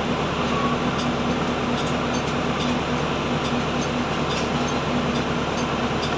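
Steady, noisy background din with a low hum that comes and goes, and a few faint ticks; no distinct chopping strikes.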